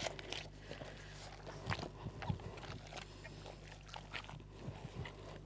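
Faint, irregular squishes and soft taps of oiled pizza dough being gathered and kneaded by gloved hands in a metal bowl, over a low steady hum.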